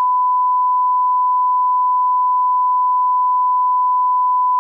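Broadcast line-up tone: a steady, unwavering 1 kHz reference sine tone that plays with the colour bars so that audio levels can be set before the programme.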